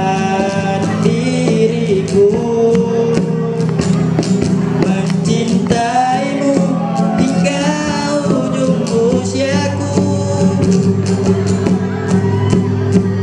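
Teenage boys singing a song into microphones, accompanied by a strummed acoustic guitar and a steady cajon beat.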